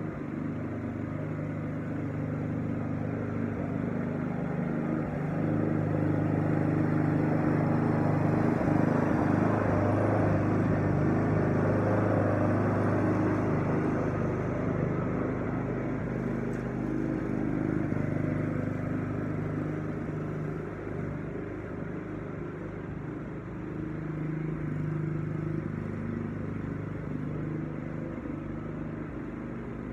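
Walk-behind lawn mower engine running steadily while mowing. It grows louder as the mower passes close, about a third of the way in, then fades as it moves away, swelling again a little near the end.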